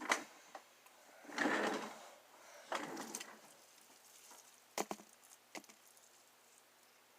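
Homemade slime being handled close up: two short squishy bursts a second or so apart, with a sharp click at the start and a few more clicks later.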